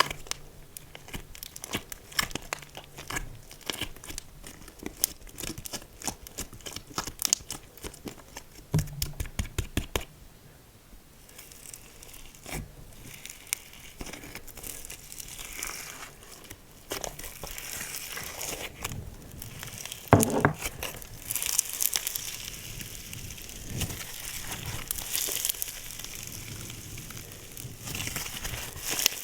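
Slime being squished and stretched by hand, with dense crackling clicks of small air pockets popping for the first third, then softer squishing with a few louder pops.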